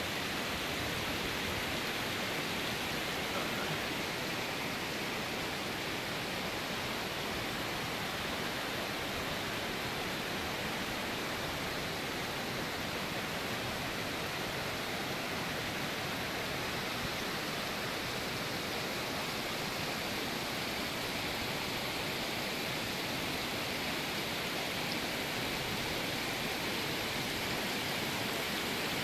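Mountain stream rushing over a rocky bed of stones, a steady, even rush of water.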